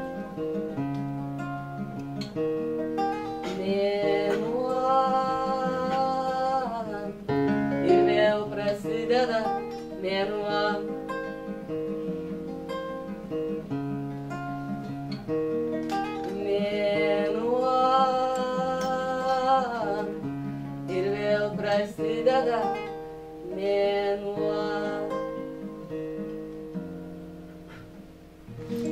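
A woman singing to her own acoustic guitar, the guitar picked in a steady flow of notes under long sung phrases that rise and fall in pitch. The playing trails off near the end.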